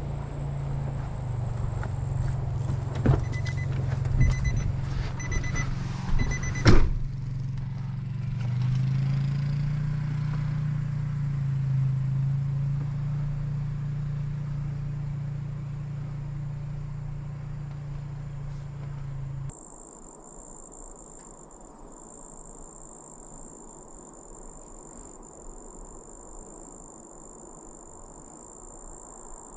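Nissan truck engine idling, with a few sharp clicks, a run of short beeps and a loud thump in the first seven seconds. The engine is switched off about two-thirds of the way through, leaving crickets trilling steadily.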